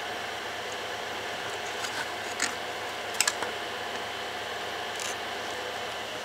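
Light clicks and taps of a small metal model steam engine being handled on its 3D-printed PLA plastic base, a few scattered through the middle, the loudest a quick pair about three seconds in, over a steady background hum.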